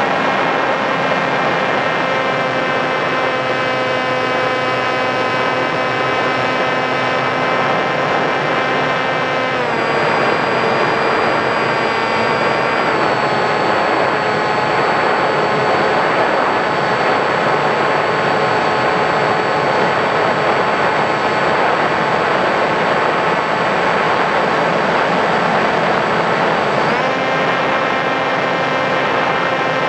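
Electric motor and propeller of a Sky Surfer RC glider running under power, heard from a camera on the plane: a steady whine over rushing air. The whine steps down in pitch about ten seconds in and again about three seconds later, then steps back up near the end.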